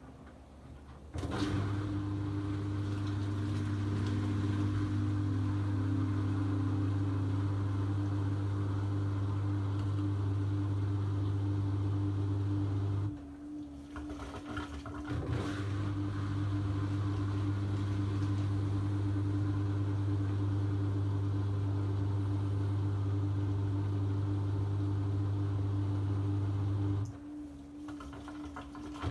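A machine's steady, loud hum that starts about a second in, cuts out for about two seconds in the middle, then runs again until it cuts out near the end.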